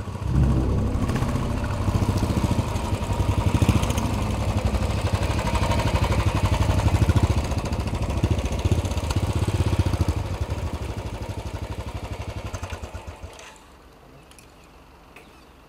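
Royal Enfield single-cylinder motorcycles running at low speed with a rapid, even pulse, their engine sound falling away abruptly about 13 seconds in, leaving quiet outdoor background.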